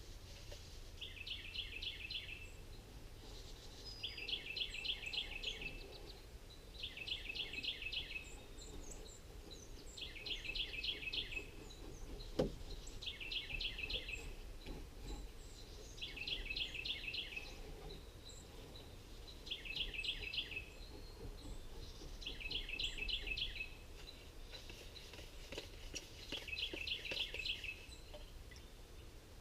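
A songbird singing the same short trilled phrase over and over, about every three seconds, each a rapid run of high notes lasting about a second and a half. A single sharp click sounds about halfway through.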